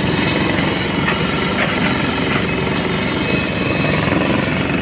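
A heavy engine running steadily with a fast low pulsing.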